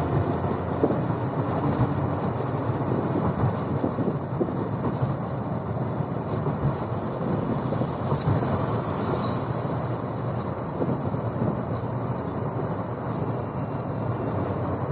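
Steady engine and road noise heard from inside a moving vehicle's cab, with a continuous rattling rumble.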